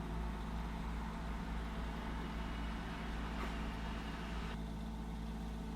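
Minix The Plender food waste processor running with a steady low motor hum. The higher hiss drops a little about four and a half seconds in.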